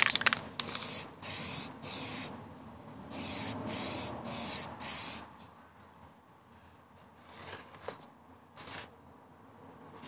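Aerosol spray can of primer hissing in short bursts, about seven in quick succession, then two fainter bursts near the end. This is the first coat of primer going onto plastic heater knobs.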